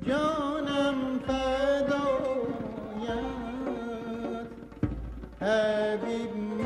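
Persian classical ensemble of tar, setar, kamancheh, ney, santur and tombak playing a tasnif in the Segah mode. A melodic line with bending, ornamented pitch falls away about five seconds in, and a louder phrase starts about half a second later.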